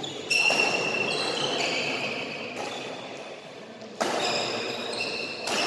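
Badminton doubles rally in a sports hall: a few sharp hits, about three, with high squeaking tones that shift in pitch, typical of court shoes on the floor, ringing on in the hall's echo.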